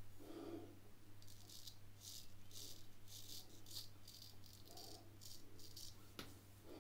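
Drew Dick 8/8 smiling straight razor scraping through lathered stubble, a quiet crackle of whiskers being cut in a quick run of short strokes, several a second. A steady low hum runs underneath, and there is a single click near the end.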